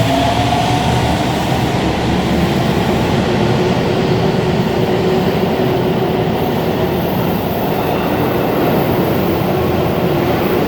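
Sendai Subway 1000N series train running, its motor whine rising in pitch over the first few seconds and then holding steady over the rumble of the wheels.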